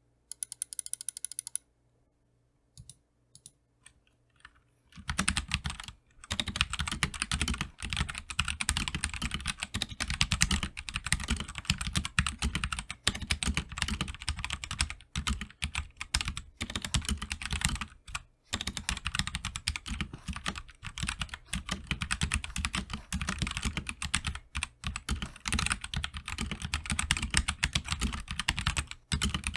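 Royal Kludge RK84 mechanical keyboard on its stock switches, which are pretty pingy and not very tactile, being typed on. A quick run of key clicks comes near the start, then a few single keystrokes, then steady fast typing from about five seconds in.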